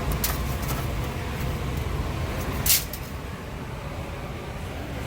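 Ford F-150 Raptor's 6.2-litre V8 running with a steady low rumble while misfiring on cylinder 8, where coolant is leaking into the cylinder. A few light clicks come in the first second, and a short, sharp hiss comes about two and a half seconds in.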